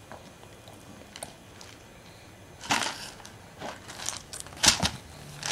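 A baby handling a plastic snack canister, which crackles and knocks as it is gripped and turned. There are several short bursts from about halfway in, the loudest near the end.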